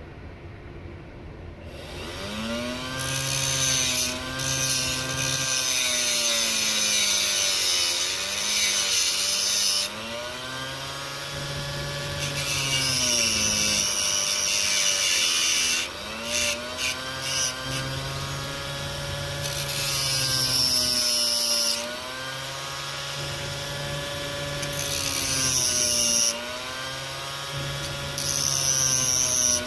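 Small electric rotary tool running in long stretches, its whine dipping and recovering in pitch under load, with harsh grinding hiss while it cuts. It starts about two seconds in.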